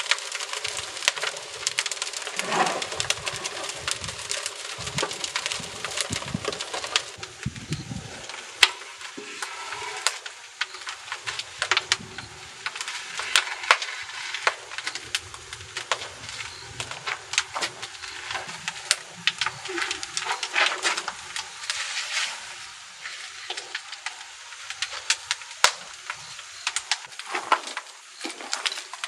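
Firewood burning and crackling in a wood-fired train kiln, with dense, irregular snaps and pops throughout. A few low knocks of split wood come in the first several seconds.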